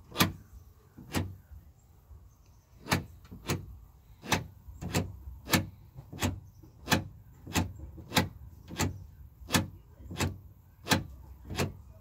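Aftermarket power door lock actuator clicking as it repeatedly drives the door lock rod, cycling lock and unlock: about sixteen sharp clicks, roughly one every two-thirds of a second, with a short pause after the second.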